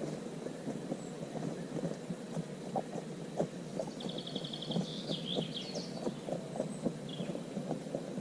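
Woodland ambience: a steady low rumble with many small clicks and crackles throughout. About four seconds in, a songbird sings a short trill of rapid high notes followed by a few falling notes, with one more short note near the end.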